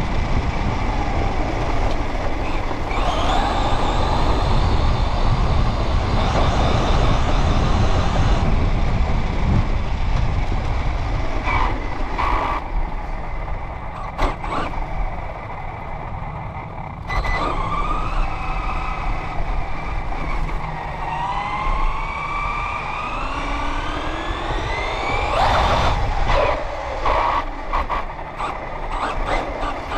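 Radio-controlled car's motor and drivetrain heard from on board the car: a whine that rises and falls in pitch as it speeds up and slows. Under it is a heavy rumble from the tyres and chassis over rough ground, with a few sharp knocks.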